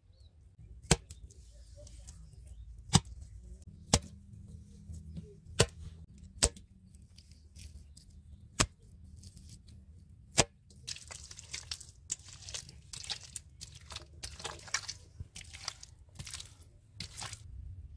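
Hands working wet clay: single sharp slaps every second or two, then from about two-thirds of the way in a quick run of wet squelching as the clay is kneaded and pressed.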